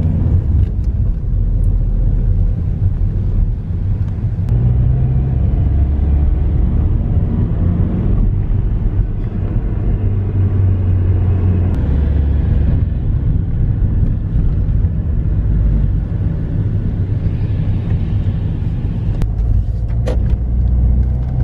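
Car on the move, heard from inside: a steady low rumble of engine and road noise.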